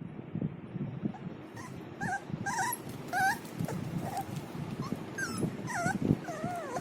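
Pit bull puppy whimpering: a string of short, high whines starting about a second and a half in, the last couple longer and wavering.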